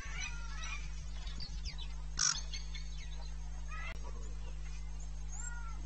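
Wild birds chirping and calling, with one short, louder call about two seconds in, over a steady low electrical hum.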